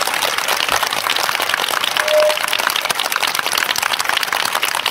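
Crowd applauding, many hands clapping steadily, with a short single tone about two seconds in.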